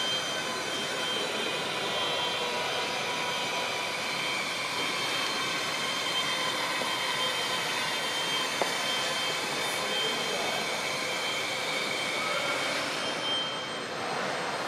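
Steady mechanical whoosh and hum of the ventilation and building machinery in a large, hard-walled station hall, with a few faint steady tones running through it; the high part of the noise drops away near the end.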